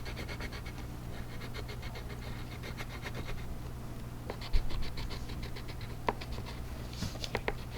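Crayon scribbling rapidly back and forth on paper in quick, even scratchy strokes, pausing briefly about halfway through. A steady low hum runs underneath, and a few light taps come near the end.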